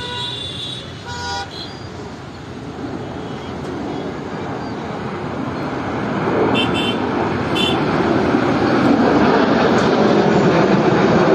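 Jet engine roar of a formation of fighter jets flying past, building steadily over the second half and loudest at the end. A few short horn-like toots sound at the start, and two brief beeps come around seven seconds in.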